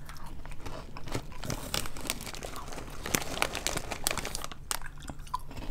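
Plastic snack bags crinkling as they are handled, with many short scattered crackles.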